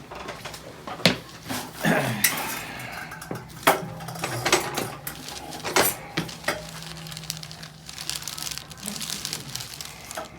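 Sharp cracks of a chiropractic neck adjustment: the neck joints pop several times as they are manipulated, the loudest about a second in, near four seconds and near six seconds. A stretch of shuffling noise follows near the end.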